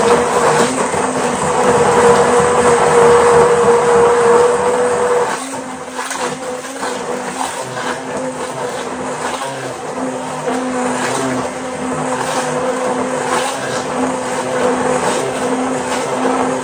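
Hand-held immersion (stick) blender running in a glass bowl, puréeing pieces of banana and tangerine: a steady motor whine that drops in level about five seconds in and keeps going.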